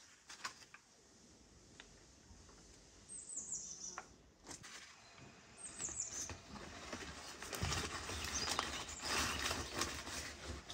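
Burning paper and dry twigs crackling and rustling as a fire is lit in a clay tandoor and the twigs are handled, growing much louder about three-quarters of the way through. A bird gives a short high falling chirp twice.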